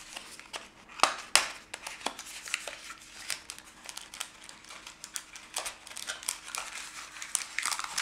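A small cardboard box being handled and opened by hand: paper-board rubbing and scraping as the box is pried open at one end and the inside slid out, with many small taps and clicks. The two loudest clicks come about a second in.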